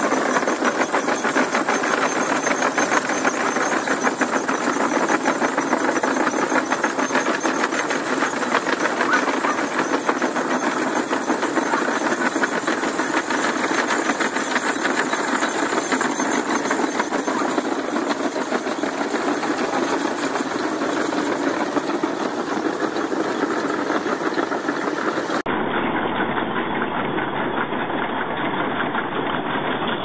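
1899 Buffalo Pitts threshing machine running, a steady, fast mechanical clatter from its belts and moving parts while it threshes.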